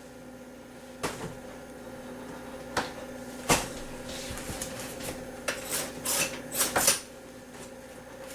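Knocks and clatter of kitchen things being handled at a toaster as a microwave meal is tried in it. There are single knocks, the sharpest about three and a half seconds in, then a quick run of knocks and scrapes near the end, over a steady low hum.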